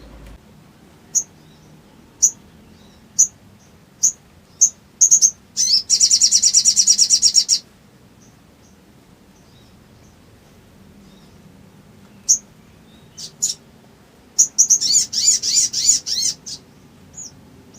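A sogok ontong (sogon) songbird calling: sharp high single chirps about a second apart, speeding up into a fast, dense trill, then after a pause another rapid run of chirps.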